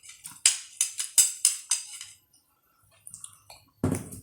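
Eating sounds close to the microphone: a quick run of six or so crisp clicks and scrapes of a spoon and food on a plate, then a louder knock near the end.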